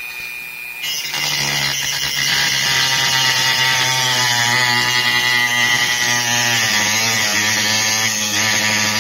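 Dremel rotary tool cutting a slot into the metal head of a one-way screw. It runs with a lighter whine for about a second, then bites into the metal and grinds loudly and steadily, its pitch wavering as it cuts.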